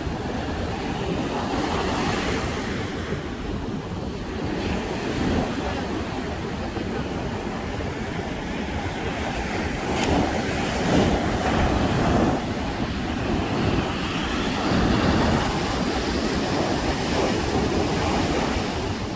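Ocean surf breaking on a sandy beach, a steady wash that swells louder as bigger waves come in about halfway through and again later, with wind rumbling on the microphone.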